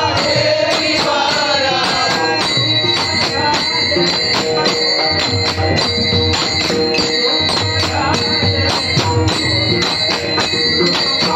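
Men singing a Marathi bhajan together to brass hand cymbals (taal) clashing in a quick, steady rhythm, with low beats under it.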